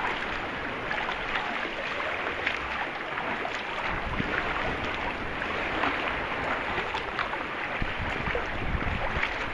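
Sea kayak under way: paddle strokes splashing in choppy sea water with steady sloshing, and wind buffeting the microphone at times.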